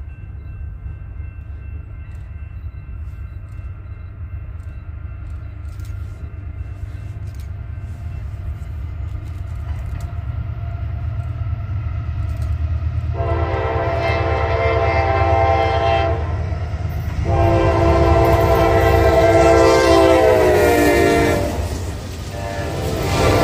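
Approaching Norfolk Southern freight train led by GE diesel locomotives: the low rumble of the engines grows steadily louder, then the locomotive's multi-note air horn sounds two long blasts, about thirteen and seventeen seconds in, the second falling in pitch at its end as the locomotive draws level. Near the end the locomotives go by loud at close range.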